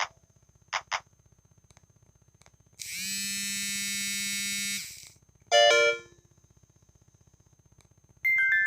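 Samsung SGH-T410 phone's speaker playing short electronic alert tones one after another: two quick blips about a second in, a buzzy held tone of about two seconds, a short chord, then a new melodic tone starting near the end. A faint steady high whine runs underneath.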